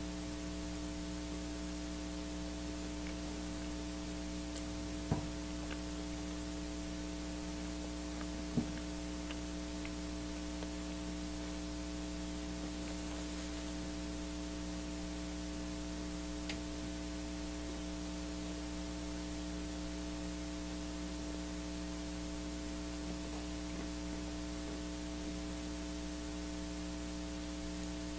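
Steady electrical mains hum over a hiss of static. Two short, faint clicks come about five and eight and a half seconds in.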